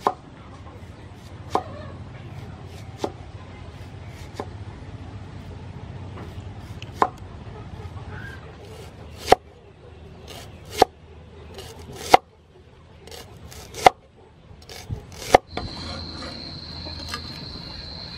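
A cleaver slicing red shallots on a wooden cutting board, one stroke at a time. Each cut ends in a sharp knock of the blade on the wood, about every second and a half. A steady high whine comes in near the end.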